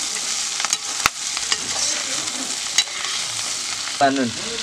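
Green beans and potatoes sizzling steadily in a black iron karahi while being stirred with a long metal spatula, which scrapes and clicks sharply against the pan a few times.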